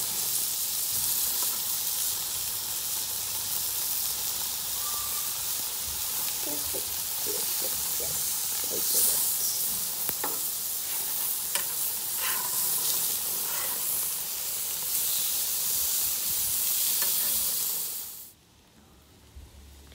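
Beef burger patties sizzling on a hot ridged grill plate: a steady frying hiss with a few light clicks partway through. It cuts off suddenly about two seconds before the end.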